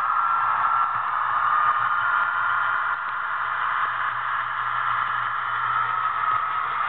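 HO scale model passenger train running past: a steady hiss of the cars rolling on the track, with a faint steady whine.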